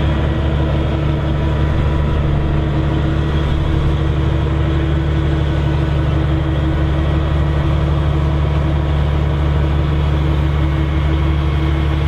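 Claas Lexion 8900 combine harvester running as it drives, a deep, even engine drone with a steady hum above it that does not change.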